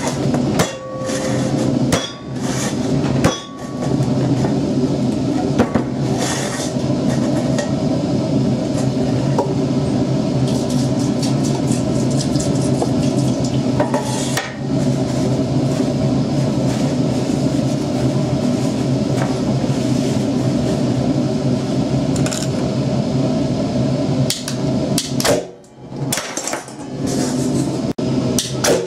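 A metal paint tin being handled and set down, with knocks and clinks of metal, over a steady motor hum that stops about 25 seconds in. A few sharp clicks follow near the end.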